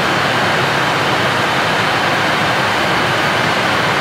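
Steady rushing noise of airflow and engines in the cockpit of a Boeing 737 MAX in flight.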